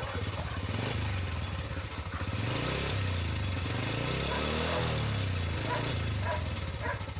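Small motorcycle engine idling steadily, its pitch wavering up and down a little.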